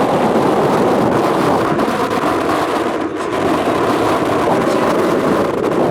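Strong wind buffeting the camcorder's built-in microphone: loud, steady wind noise.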